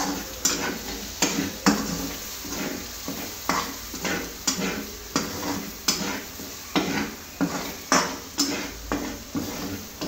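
Metal spatula scraping and knocking against a black kadhai while stirring diced potatoes and tomatoes frying in oil, about two strokes a second, over a soft sizzle.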